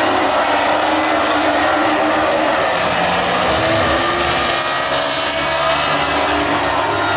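Several Baby Grand stock car engines running hard together as the cars race around the oval. A low engine note dips and climbs again about four seconds in as cars go through the turn.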